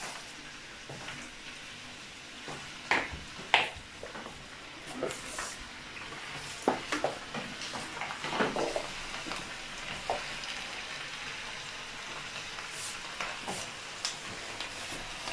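Sliced vegetables frying in oil in a frying pan, a steady sizzle, with a spatula scraping and knocking against the pan as they are stirred, in scattered clicks.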